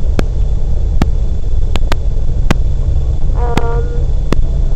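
Wind buffeting the microphone: a loud, fluttering low rumble with scattered sharp clicks, and a brief pitched tone about three and a half seconds in.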